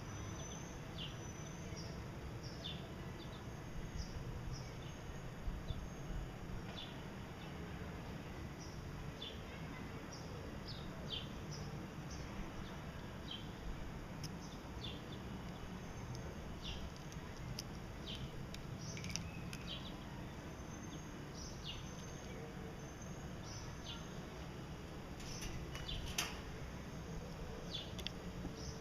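Gouldian finches giving short, high chirps and calls, scattered irregularly and thickest near the end, over a steady low hum.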